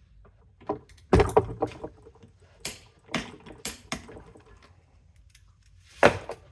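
Metal tools knocking and clanking against a BMW /2 motorcycle gearbox as the output flange's slotted nut is torqued down with a socket and torque wrench, the flange held by a holding tool. There is a loud cluster of knocks about a second in, several single knocks over the next few seconds and another sharp one near the end.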